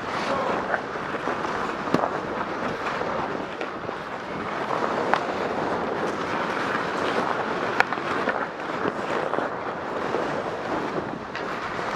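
Ice hockey practice on a rink: skate blades scraping and carving the ice make a steady hiss. A few sharp clacks of sticks and pucks come about 2, 5 and 8 seconds in.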